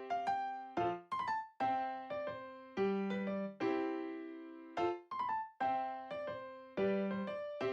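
Background music: a light piano melody of struck notes, each dying away, in a steady repeating pattern.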